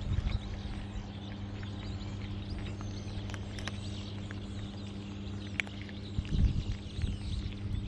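Cats crunching dry kibble close up: scattered small clicks, with a few louder low bumps about six seconds in, over a steady low hum.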